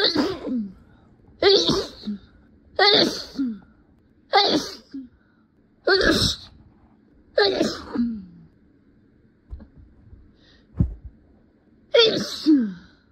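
A person sneezing in a rapid fit, six sneezes about a second and a half apart. After a pause with a soft thump, one more sneeze comes near the end.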